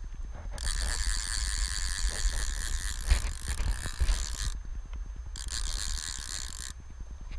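Fly reel's ratchet drag buzzing as a hooked steelhead runs and strips line off it, in two runs: a long one of about four seconds, then a shorter one of about a second and a half. A low rumble of river and wind on the microphone runs underneath.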